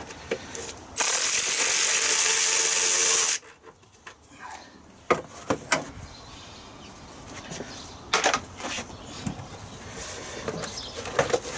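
A power tool runs steadily for about two seconds, starting about a second in and cutting off abruptly. Scattered clicks and knocks of tools and parts being handled follow.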